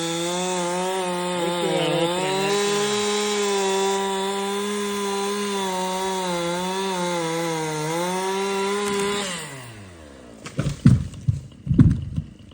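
Two-stroke chainsaw running at high revs, its pitch wavering under load, then winding down and stopping about nine seconds in. A few loud, irregular low thumps follow near the end.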